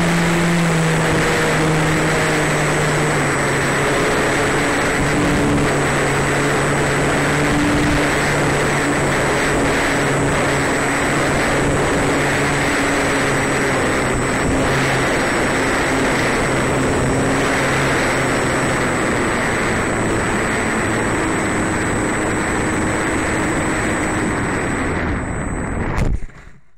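Onboard sound of a small electric RC biplane's motor and propeller in flight, with heavy wind rush over the camera; the motor hum drifts slowly lower in pitch. Near the end a short knock as the plane lands in grass, and the sound cuts off.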